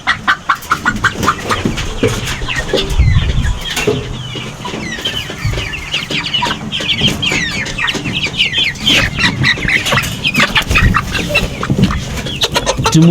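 A flock of young chickens clucking and peeping, many short falling calls overlapping without pause, as the birds are being caught by hand. A few low thumps come about three seconds in and again near the end.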